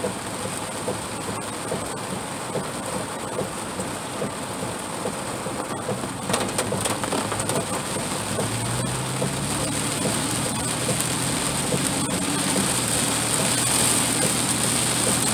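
Heavy rain pattering on the truck's windshield and roof, heard from inside the cab as a steady hiss full of small drop ticks that grows a little louder towards the end. A low engine hum joins in about halfway through.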